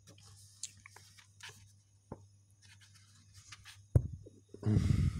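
Handling noise as a hardcover comic book is turned over: light scratches and rubs, a sharp thump about four seconds in, then a louder rubbing noise near the end.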